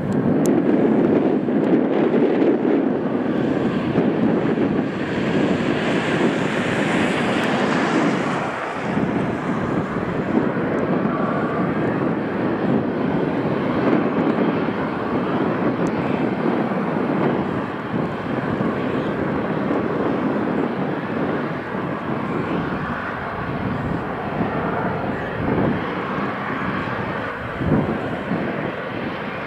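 Aircraft engine noise across an airfield: a steady, even noise with no distinct tones, a little louder for the first eight seconds or so.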